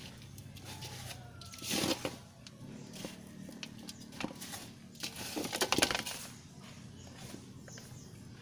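Potting mix of soil and carbonized rice hulls being stirred and scooped by hand in a large metal basin: a gritty rustling and scraping, loudest in two bursts about two seconds in and again around five and a half seconds.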